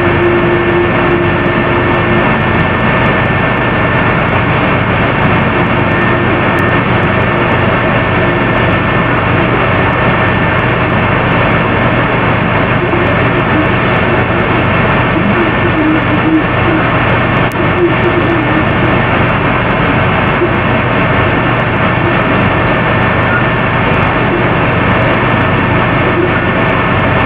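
Room fans and air conditioning running, recorded very loud: a steady rushing noise with a constant hum of several held tones.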